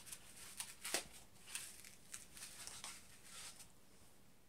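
Faint handling of a plastic toy foam-ball shooter as a foam ball is fitted to its barrel: light rustles and small clicks, the sharpest about a second in.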